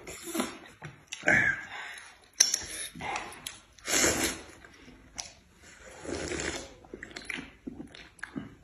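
Hot and sour noodles and broth being slurped from a bowl: a series of short, noisy slurps with chewing and quieter gaps between.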